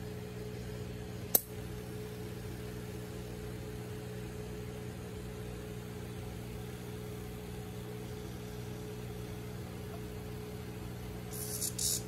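Steady low hum of aquarium equipment. One sharp click comes about a second and a half in, and a brief high hiss comes near the end.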